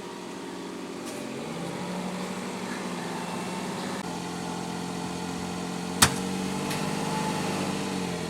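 A steady engine-like hum holding several even tones, with one sharp click about six seconds in.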